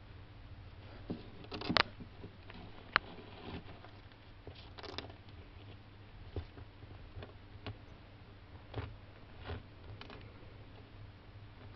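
Hermann's tortoise crawling over loose soil beside a rock: scattered faint scratches and clicks from its claws and shell. A louder scrape comes about two seconds in and a sharp click a second later, over a low steady hum.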